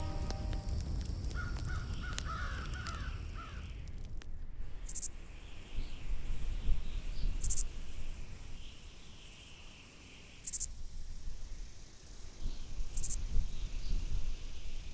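Animal calls, a few times, over a low rumble, with a short high hiss recurring about every two to three seconds.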